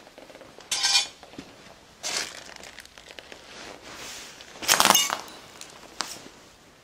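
Broken glass crunching and clinking underfoot on a debris-strewn floor: three loud crunches, the loudest about five seconds in, then a sharp click near the end.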